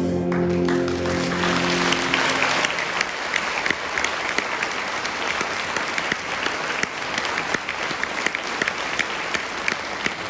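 A concert band's final held chord fades out about two seconds in as audience applause rises over it, then sustained applause with many sharp individual claps.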